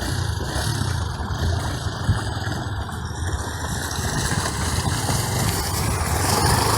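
A 250 cc single-cylinder four-stroke enduro motorcycle engine runs at low revs, growing louder toward the end.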